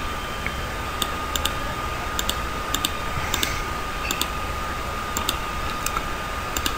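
About a dozen irregular sharp clicks from a computer's mouse and keys while a circuit diagram is being edited. A steady, thin, high tone and a low hum run underneath.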